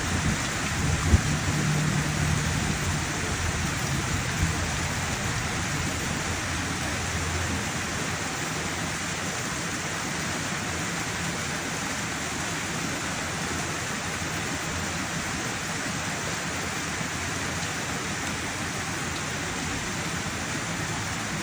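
Steady rain falling, an even hiss. One sharp click about a second in.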